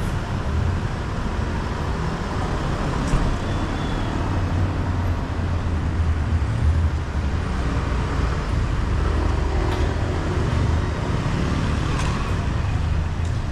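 Steady rumble of street traffic with an even outdoor hiss.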